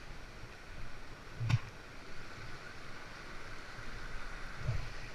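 Water splashing and lapping around a kayak being paddled, with a sharp knock about a second and a half in and a dull thump near the end.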